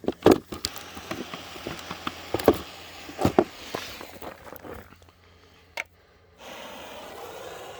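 Footsteps and a few sharp knocks, then a brief hush with a single click. About six seconds in, a steady rushing hiss starts, as the ground fountain firework begins to spray.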